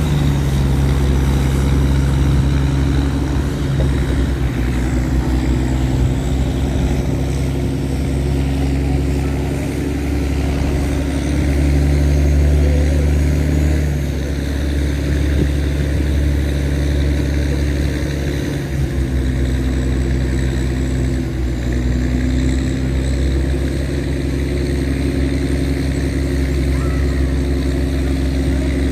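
Tugboat engine running steadily under way as it tows sand barges, a deep drone whose pitch shifts slightly now and then.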